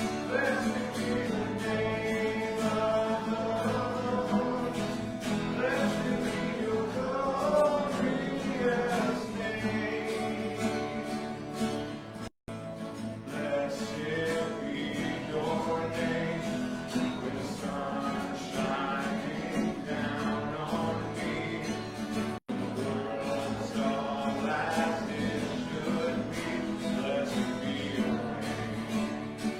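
A church congregation and worship team sing a worship song together, accompanied by guitar. The sound cuts out completely twice, each time very briefly.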